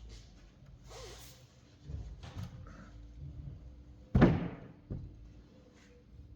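A single loud thump about four seconds in, with quieter knocks and handling noises around it.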